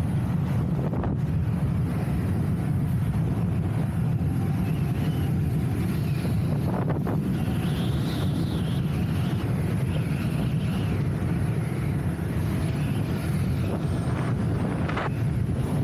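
Steady low wind rumble buffeting the camera microphone while riding an electric unicycle at speed. A faint rising and falling whine comes in partway through, and there are two brief bumps, one near the middle and one near the end.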